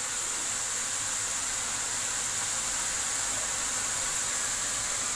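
Steady sizzling hiss of a straw-mushroom stir-fry cooking in a wok over a gas burner.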